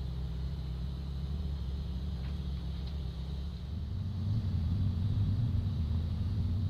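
A locomotive running with a steady low hum and rumble that grows louder about four seconds in.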